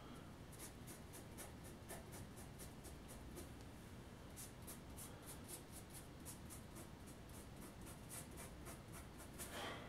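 Faint, scratchy strokes of a paintbrush dry-brushing paint across a model railroad road surface, repeating about two to three strokes a second.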